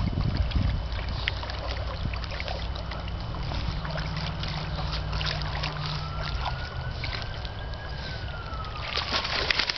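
Water sloshing and splashing from a Doberman swimming with a stick in its mouth, with a burst of louder splashing near the end as it climbs out onto the bank. A low steady rumble runs underneath.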